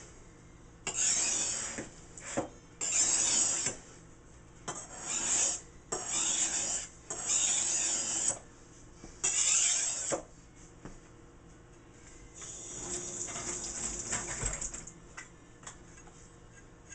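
Kitchen knife being sharpened: about seven scraping strokes of the blade along the sharpener, each roughly a second long, the blade held at about a 20-degree angle so every stroke keeps the same pitch, the sign of a steady angle. A longer, softer stroke follows near the end.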